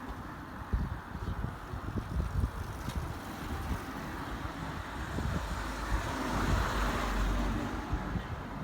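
Wind buffeting the microphone in uneven low thumps, over a steady rumble that swells about six to seven seconds in.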